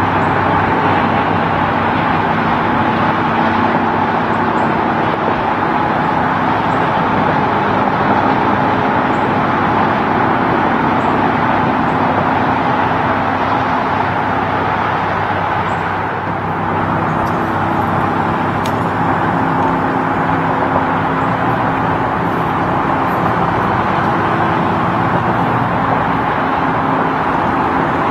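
Steady highway traffic noise: tyre hum on the road with the drone of passing truck engines, dipping briefly a little past halfway.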